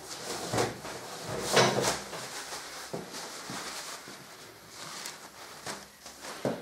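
Hands handling parts on a workbench: several light knocks and clunks, with a louder rustling scrape about one and a half seconds in, and a knock near the end as a new spin-on oil filter is lifted off the bench.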